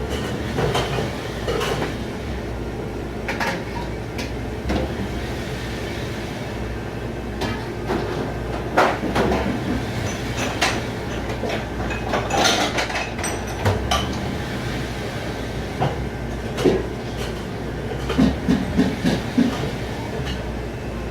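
Commercial kitchen dish pit at work: a steady low machine drone with frequent clattering of dishes and racks throughout, and a quick run of clacks near the end.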